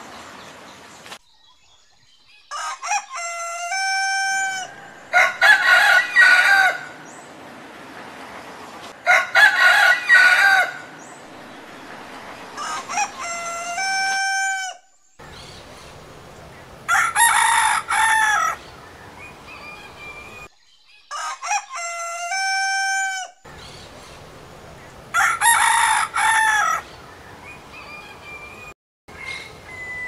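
Roosters crowing over and over, about seven crows in all, each a drawn-out cock-a-doodle-doo that drops at the end. Loud crows alternate with fainter ones.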